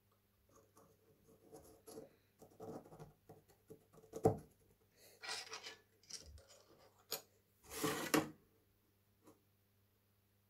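Wooden trowel handle being pushed and twisted onto the metal tang and ferrule, wood and metal rubbing and scraping, with a sharp knock about four seconds in. A louder scrape near eight seconds as the assembled trowel is set down on the wooden bench.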